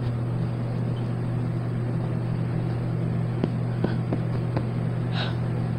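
Electric fan running steadily, a low hum with a haze of rushing air. A few faint taps and rustles come in the second half as pillows are moved about.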